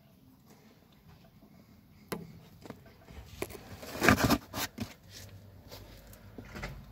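Handling noise from hands and a camera working in a car's wheel arch: a sharp click about two seconds in, a loud burst of scraping and rustling about four seconds in, then a few scattered clicks.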